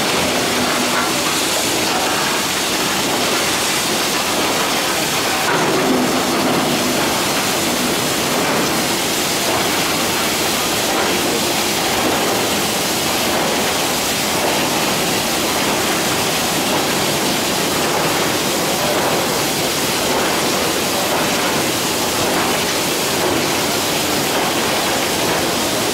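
Steam train giving off a steady rushing hiss with no clear beat.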